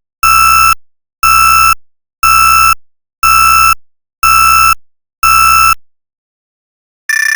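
Electronic alarm beeping: a steady-pitched beep about half a second long repeats once a second, six times, then stops. After a short gap, near the end, the first beep of a different, higher-pitched alarm begins.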